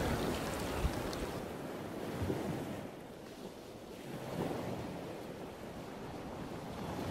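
Steady, fairly quiet wash of sea surf on a rocky shore, with wind rumbling on the microphone.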